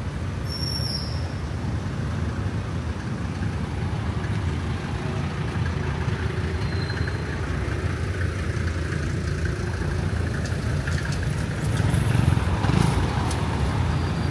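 Road traffic: a steady rumble of passing engines and tyres, swelling as a vehicle passes close about twelve seconds in.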